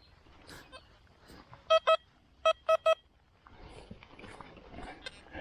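XP Deus metal detector sounding target beeps: two quick beeps, then three more about half a second later, each the same mid-pitched tone. Fainter rustling runs underneath.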